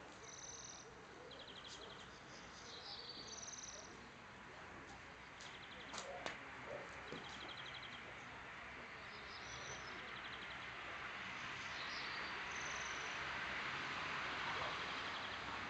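Small birds singing in the background: short high chirps and fast trills, repeated on and off. A steady hiss grows louder over the second half, and there are a couple of sharp clicks about six seconds in.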